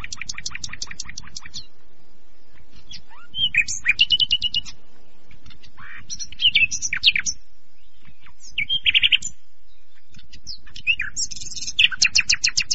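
Common nightingale singing: about six short phrases separated by brief pauses. The first is a fast run of repeated notes; the others are whistles, slurred notes and trills, with a buzzy rapid phrase near the end.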